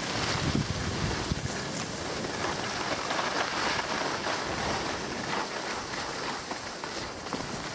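Skis sliding and scraping over packed snow on a downhill run, a rough hiss that swells and fades as the skier turns, with wind buffeting the microphone.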